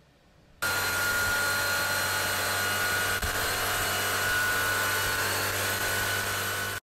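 A steady whirring machine noise: an even hiss with a low hum and a thin high whine. It starts abruptly under a second in and cuts off suddenly just before the end.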